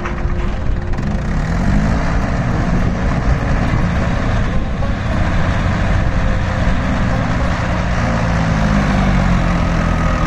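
Tractor diesel engine working hard under load as it hauls a loaded trailer out of soft, muddy ground; the revs rise twice.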